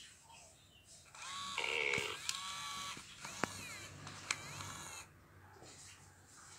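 A WowWee animatronic plush wolf pup toy playing its built-in electronic animal sounds for about four seconds: a string of pitched calls that bend up and down, with sharp clicks in between, while its motorised eyelids close and open.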